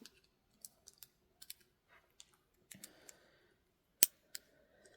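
Leatherman Arc multitool being handled and its tools worked: a scatter of small metallic clicks, with one sharp click about four seconds in.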